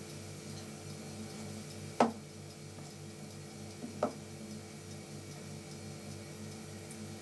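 Two sharp clicks about two seconds apart, the first the louder, over a steady low hum with a faint regular pulse.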